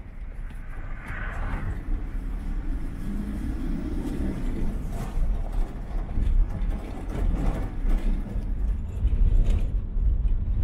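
A car driving, with a steady low engine and road rumble; a couple of seconds in, the engine note rises for about two seconds as the car speeds up.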